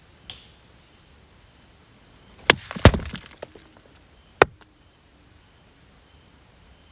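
A quick flurry of sharp cracks and snaps, followed by one more single crack about a second later, against faint night hiss.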